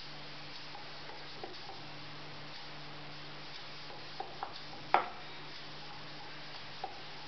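Hands pressing and patting corn-flour dough flat on a wooden rolling board, with a few light taps and one sharper knock about five seconds in, over a steady low hum.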